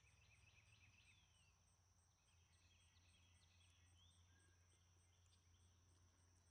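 Near silence: faint outdoor background with a few faint, short bird chirps.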